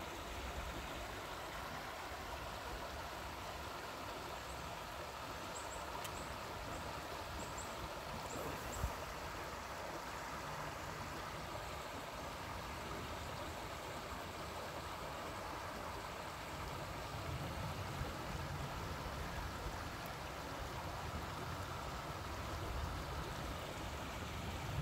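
Steady rushing of a shallow creek flowing over rocks, with a low rumble underneath that grows stronger in the second half and one brief knock about a third of the way in.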